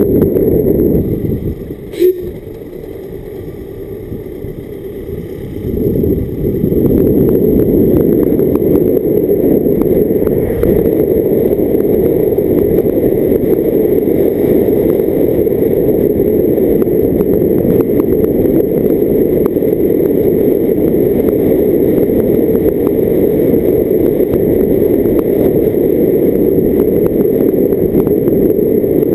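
A car driving, picked up by a camera on its bonnet: rushing wind and road noise, loud and steady. It drops noticeably from about a second in until about six seconds in, with one sharp click about two seconds in, then comes back up.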